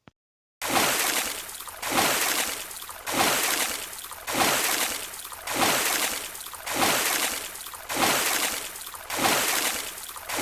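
Water splashing again and again at an even pace, about one splash every second and a quarter, each starting sharply and fading before the next.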